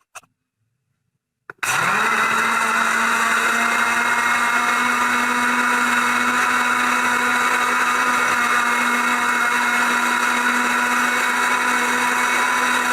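Electric kitchen blender switched on about a second and a half in, spinning up within a moment and then running steadily at one speed, blending cut strawberries with water, sugar and lemon syrup.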